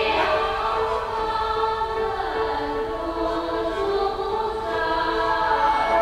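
Contemporary chamber music with live electronics: many held tones layered into a slowly shifting chord.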